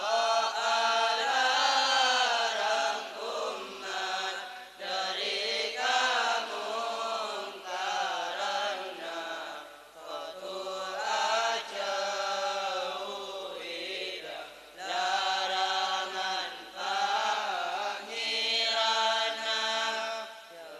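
A group of boys chanting a Madurese syi'ir (devotional verse) together in a sung, melodic recitation. It goes in phrases a few seconds long, with brief pauses for breath between them.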